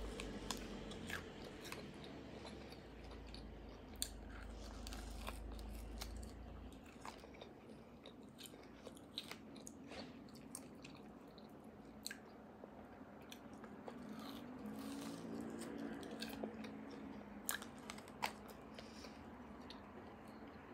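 Quiet, close-miked chewing with many small wet mouth clicks and smacks: roasted beef bone marrow being eaten and sucked straight from the bone.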